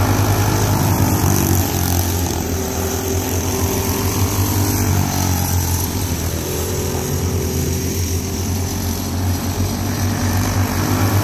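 Several racing go-kart engines at full throttle as a pack of karts laps the oval, their pitches shifting against one another. The sound drops slightly in the middle as the karts move off around the far side and grows again near the end as they come back past.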